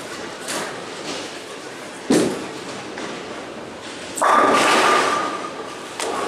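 Ten-pin bowling: a bowling ball thuds onto the lane about two seconds in, and about two seconds later the pins crash, the loud clatter ringing on for over a second in the hall.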